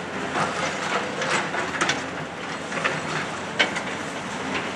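Tracked demolition excavator's engine running while it tears at a concrete building, with rubble cracking and clattering down in sharp knocks at irregular moments.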